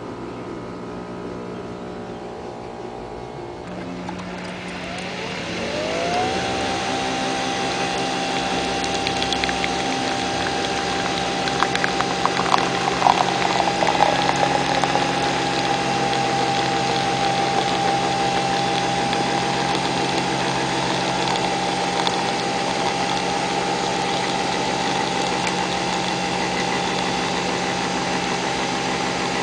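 Nespresso VirtuoLine brewer running a brew cycle. A low steady hum turns, about five seconds in, into a rising whine as the motor spins the capsule up to speed, then holds as a steady whine. There are a few clicks around twelve to fourteen seconds in.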